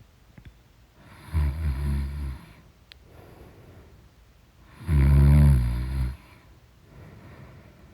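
A person snoring loudly in deep sleep: two long, rattling snores about three and a half seconds apart, with quieter breathing between them.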